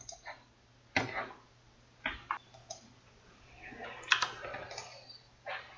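About half a dozen separate computer mouse and keyboard clicks, spaced unevenly a second or so apart, as Photoshop is worked at the desk.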